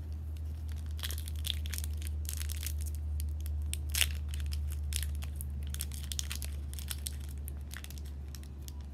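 Foil wrapper of a Pokémon card booster pack being crinkled, pulled and torn open by hand: irregular crackling and rips, with a sharp crack about four seconds in. The wrapper is stiff and hard to tear open.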